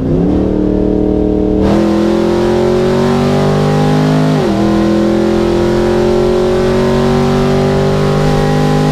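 Camaro ZL1's supercharged V8 at full throttle, heard from inside the cabin, with the exhaust dumping through open diverters. The engine pitch climbs steadily and drops back at upshifts about two seconds in and about four and a half seconds in, then climbs again. Very loud.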